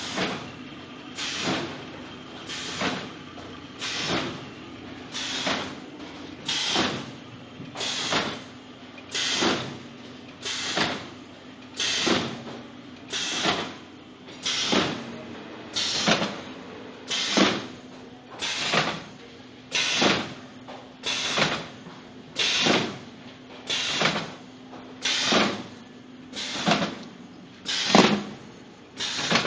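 Cinnamon roll make-up line running: a short, noisy mechanical stroke repeats evenly about every one and a half seconds over a steady machine hum.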